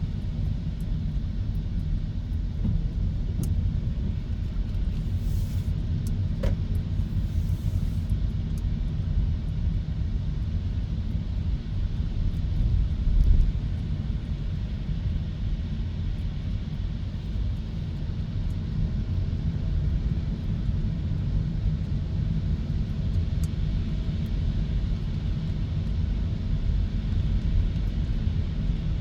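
Steady low rumble of road and tyre noise from a Hyundai Kona EV driving along; as an electric car it has no engine note.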